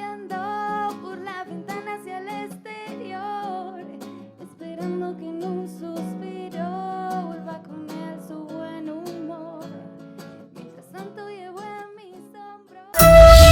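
Music: a song with acoustic guitar and singing. About 13 seconds in it cuts abruptly to a much louder piece of music.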